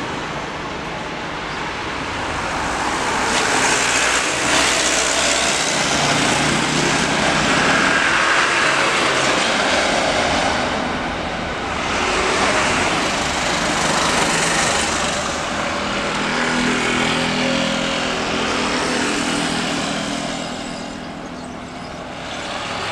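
Jet engine noise from a Boeing 777 rolling along the runway: a loud, steady rushing sound that swells over the first few seconds and eases off near the end.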